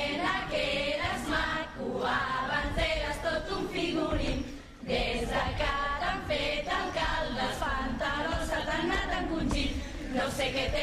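A group of voices singing together in chorus, a satirical carnival 'coros' song, with a brief break about four and a half seconds in.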